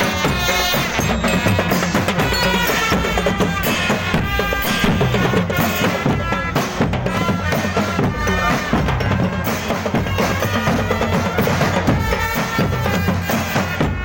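Music with busy drums and percussion under a bending melody line, loud and continuous.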